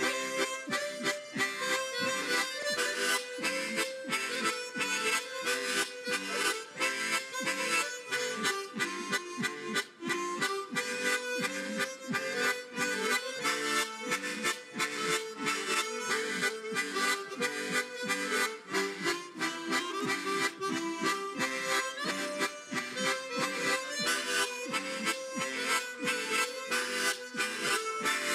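Harmonica ensemble, including large chord harmonicas, playing a tune together: a melody carried over a steady, rhythmic chord accompaniment.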